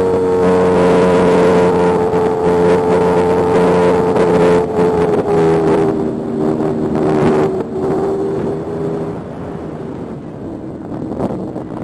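Brushless electric motor and five-blade propeller of an E-flite Spitfire Mk XIV 1.2m RC plane, heard from on board: a steady whine that sinks slightly in pitch and gets quieter about nine seconds in.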